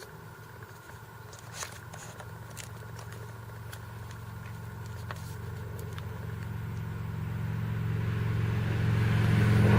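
Faint small clicks and taps from a compact digital camera being handled as its battery is taken out and the dummy-battery power connector is fitted. Under them runs a low motor hum that grows steadily louder and becomes the loudest sound near the end.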